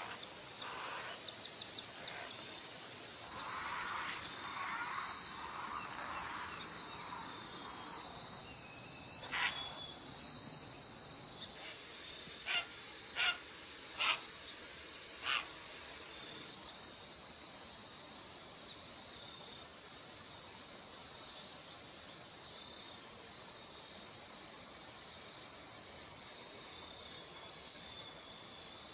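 Insect chorus, a steady high-pitched trilling buzz throughout, with a few short sharp clicks between about 9 and 15 seconds in.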